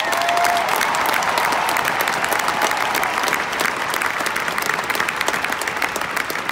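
Large stadium crowd applauding, dense and sustained, swelling in just before and holding through.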